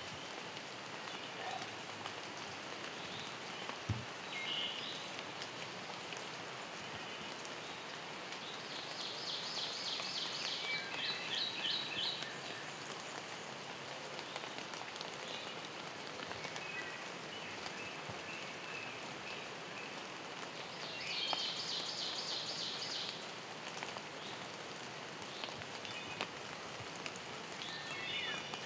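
Steady rain falling on the forest foliage, with a bird singing a short fast trilling phrase twice, about a third of the way in and again about three quarters through.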